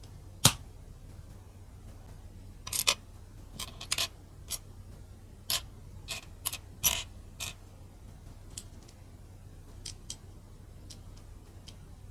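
Plastic mini building bricks clicking as they are handled and pressed together. One sharp click comes about half a second in, then an irregular run of clicks, then a few faint ticks near the end.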